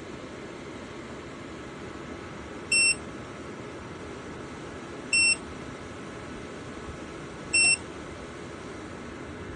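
Three short, high electronic beeps, about two and a half seconds apart, from a JIBUFI 1500W PTC space heater's controls, over its fan running steadily.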